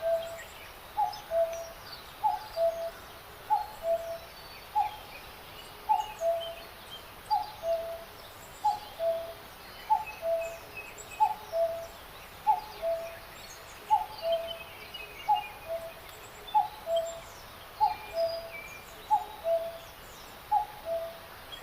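A bird repeating a low two-note call about once a second, a short falling note followed by a lower one. Other small birds chirp higher and more faintly.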